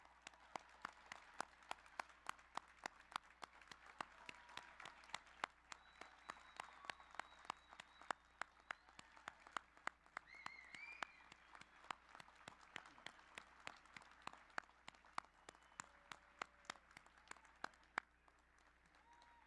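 Thin, scattered applause from a crowd, with single hand claps heard separately. It thins out and stops with a last clap near the end.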